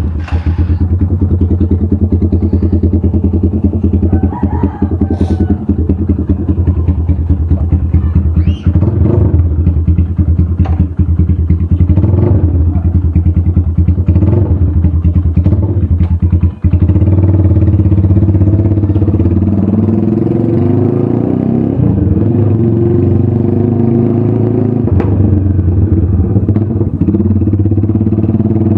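Sigma 250 motorcycle's engine running through an aftermarket SC Project exhaust, with a few short throttle blips about a third of the way in. It then settles into a smoother, steady run for the rest of the time.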